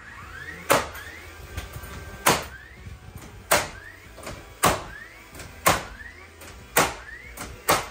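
Red cordless nailer driving nails into wood framing: seven sharp shots about a second apart, with a short rising whine from the tool between shots.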